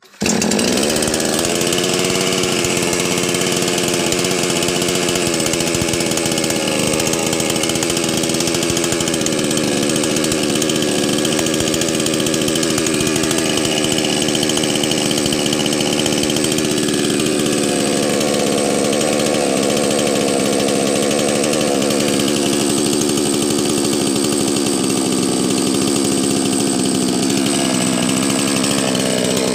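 Two-stroke chainsaw engine firing at once after the choke switch is flipped off, then running steadily; its speed sags and picks up again a few times.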